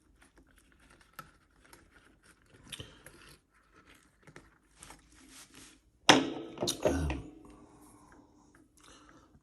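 Small metal lock-pick wires and tips of a lever-lock pick set being handled and sorted: faint scattered clicks and scrapes, then two louder knocks about six and seven seconds in.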